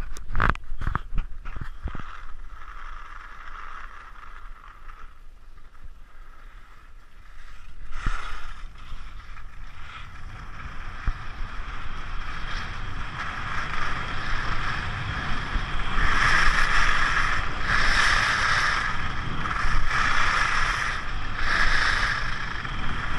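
Skis running down a groomed piste, their edges scraping the snow, with wind rushing over an action camera's microphone. A few knocks come at the start, and in the second half the scraping swells with each turn, about every two seconds.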